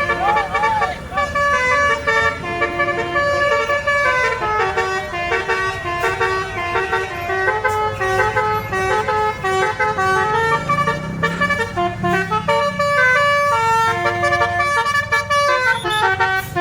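Bus telolet horn (Basuri multi-tone air horn) playing a fast melody, its notes stepping up and down several times a second, with the bus engine running underneath.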